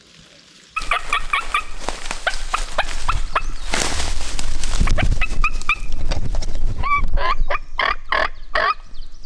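Eastern wild turkeys calling at close range: a sudden loud start about a second in, then quick runs of short, sharp notes, the later ones falling in pitch like yelps. A burst of rushing noise comes about four seconds in.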